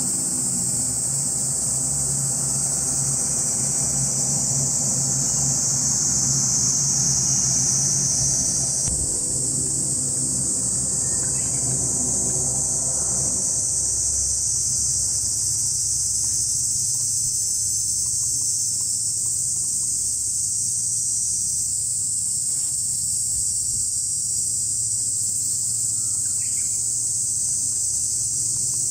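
A steady chorus of cicadas fills the high end throughout. Beneath it, an LCAC air-cushion landing craft's gas turbines and propellers hum in the distance, fading about halfway through as the craft moves away.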